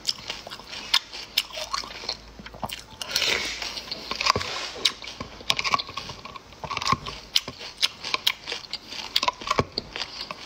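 Close-up eating sounds: a metal spoon clinking and scraping inside a glass jar of liquid, mixed with chewing, as an irregular string of sharp clicks and taps.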